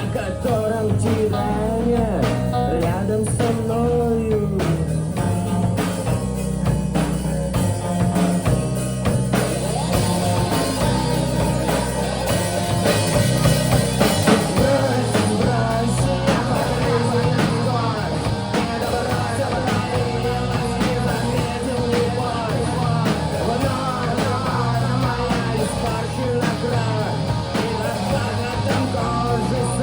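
Instrumental stretch of a rock song with drums and a bending melodic line, growing fuller and denser about ten seconds in.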